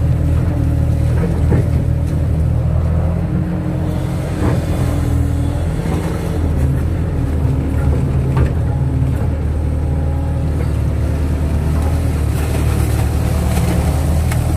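Kato crawler excavator's diesel engine running steadily under work, with a few faint knocks.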